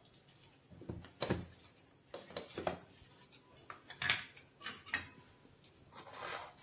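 Light, irregular clinks and knocks of a steel spoon and dishes being handled on a kitchen counter, about a dozen scattered taps as ingredients are picked from a plate for a steel mixer jar.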